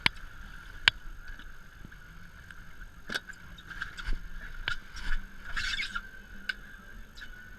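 Scattered sharp clicks and knocks of fishing gear being handled aboard a small boat, over a faint steady hum, with a brief hiss about five and a half seconds in.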